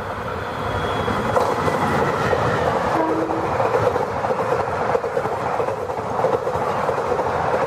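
Ranakpur Express passenger train passing at speed, its coaches rushing by with the clickety-clack of wheels on the rails. The sound builds over the first couple of seconds and then holds steady.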